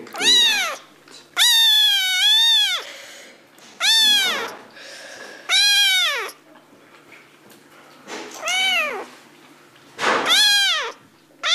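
A domestic cat meowing loudly and repeatedly: about seven meows, each rising and falling in pitch, with short quiet gaps between them. The second meow is long and drawn out with two rises.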